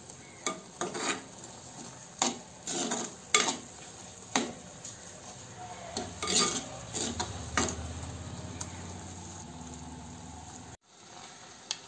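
Steel spoon stirring a thick coconut paste in a clay pot, making a series of irregular scrapes and clinks against the pot that thin out after about eight seconds.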